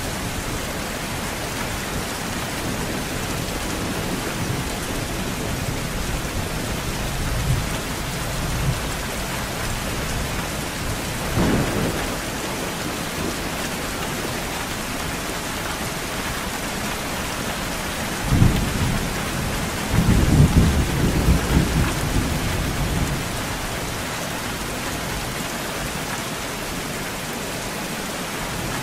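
Steady rain falling through a thunderstorm, with rolling thunder. Low rumbles come in the first several seconds, a sharper clap about eleven seconds in, and the loudest, longest roll of thunder from about eighteen to twenty-three seconds in.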